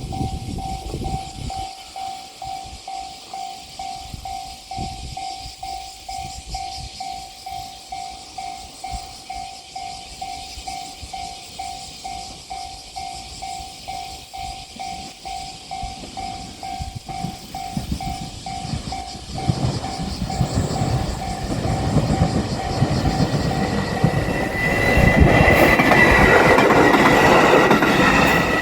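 Japanese railroad crossing bell clanging in quick, even strikes. About two-thirds of the way through, a JR Shikoku 7200 series electric train's rumble builds and drowns the bell. It is loudest near the end as the train passes, with a high steady tone over it.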